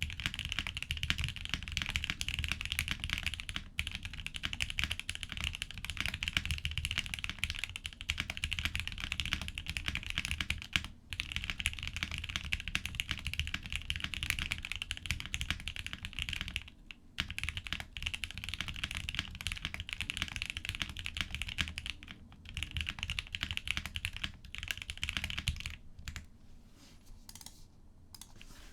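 Steady typing on a top-mount Maker Alexa mechanical keyboard with a POM plate, lubed Gateron Milky Yellow Pro KS-3 linear switches and Drop DCX keycaps, no case foam. It pauses briefly twice and thins out to a few scattered keystrokes near the end.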